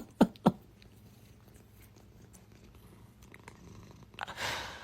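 Domestic cat purring, low and steady, with a few short sharp pulses in the first half second and a brief breathy rush near the end.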